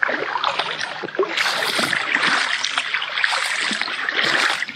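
Water splashing and sloshing in a shallow creek as people wade through it, a dense run of small uneven splashes.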